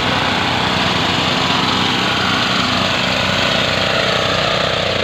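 Small engine of a portable fire pump running loudly and steadily at a constant speed during a pump test.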